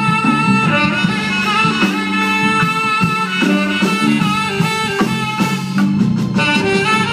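Jazz band playing live: a saxophone melody over drum kit and bass, with steady drum strokes.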